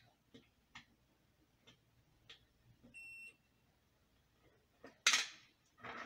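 Digital multimeter giving one short continuity beep, a steady tone, about halfway through as its probes touch the pins of a BT137 triac: the beep signals a short circuit, so the triac is burnt out. Light clicks of the probe tips come around it, and near the end there is a brief, louder rustle of handling.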